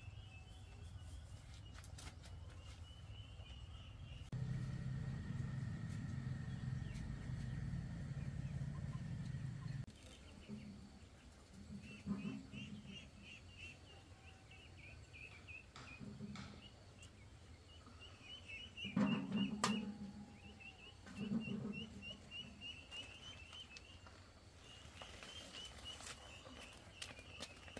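Rural outdoor background with a high, even chirping that runs throughout. A low steady hum comes in about four seconds in and cuts off suddenly near ten seconds, and several soft thumps of handling follow later.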